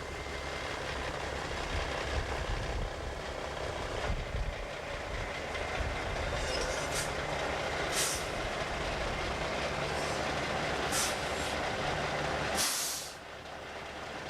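Heavy truck traffic: a diesel engine running steadily, with several short air-brake hisses. The low engine sound drops away suddenly near the end.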